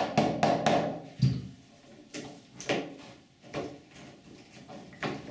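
Mallet tapping the body of a Basta flag hinge on a uPVC door to slide it along once its screw is loosened: a few quick taps at the start, then single, softer knocks spaced about a second apart.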